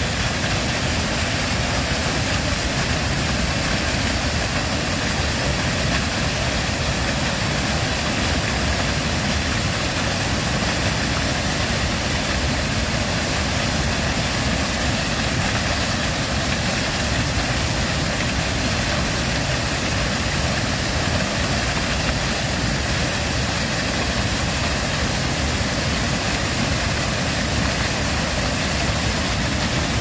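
Waterfall in high flow plunging into its pool: a steady, loud rush of falling water with a deep rumble underneath.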